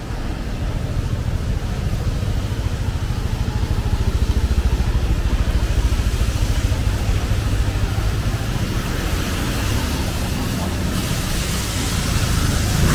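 City street traffic: a steady low rumble of vehicles, with a motor scooter coming up close and passing near the end, the noise growing louder in its last couple of seconds.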